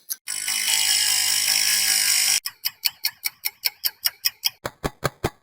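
Clock-ticking sound effect in edited variations: first a loud sustained pitched drone for about two seconds, then fast, sharp clock ticks about six a second. About four and a half seconds in, the ticks turn bass-heavy, with a deep thump under each one.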